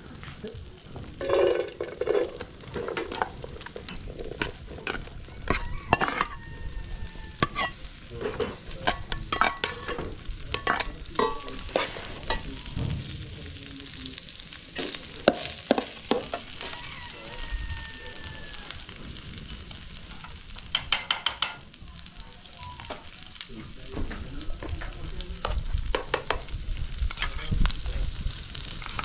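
Chopped onions frying and sizzling in a hot pot, with a metal spoon clinking and scraping against the pot many times as they are stirred.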